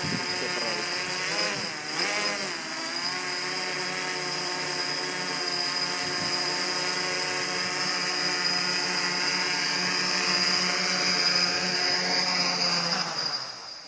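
Quadcopter's electric motors and propellers whirring in a low hover, the pitch wavering with throttle corrections in the first few seconds, then steady. Near the end the motors spool down and stop as it sets down.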